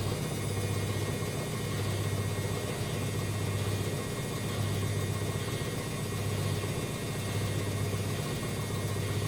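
Washing machine running its spin cycle: a steady low motor and drum hum that eases briefly a couple of times.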